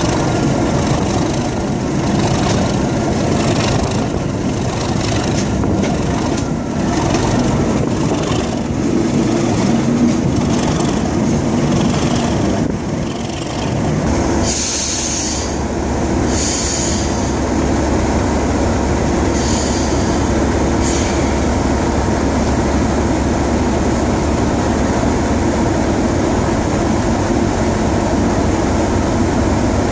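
Class 37 diesel locomotive's English Electric V12 engine running while the wheels click over the rail as it slows into a station. About halfway through, after a few short high hisses, it comes to a stand with the engine idling steadily.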